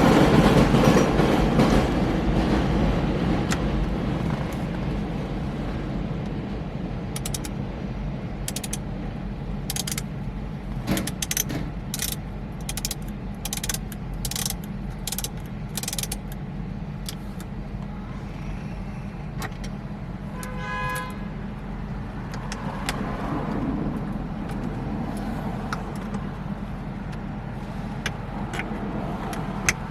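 A loud rushing noise fades away over the first few seconds. Then about a dozen sharp metallic clicks come at roughly one a second as hand tools work the steering wheel's centre bolt. A short electronic chime sounds about twenty seconds in.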